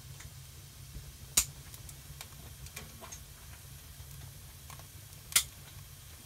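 Wood fire crackling inside a wood stove: scattered small ticks and two sharp pops, about a second in and again four seconds later, over a steady low hum.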